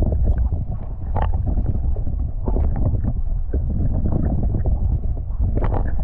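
Strong wind buffeting the microphone: a loud, steady low rumble, with a few short knocks and splashes over it.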